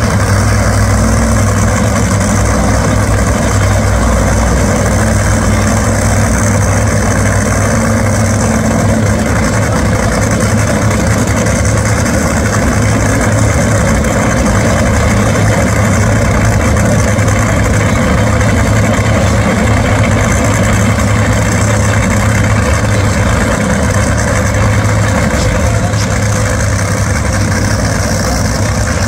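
Top Fuel dragsters' supercharged nitromethane Hemi V8s idling loud and steady at the starting line after their burnouts.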